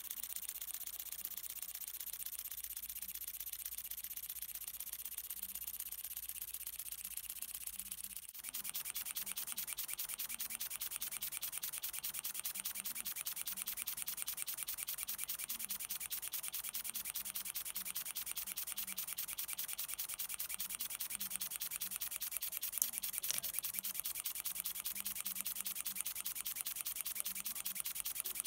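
Miniature oscillating-cylinder engine running fast on breath pressure: a steady, rapid ticking hiss of air puffing from the cylinder at each stroke. It breaks off briefly about eight seconds in and returns slightly louder, with one sharper tick past the middle.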